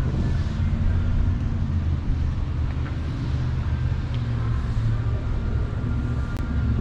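Steady low rumble of motor-vehicle traffic, engines running.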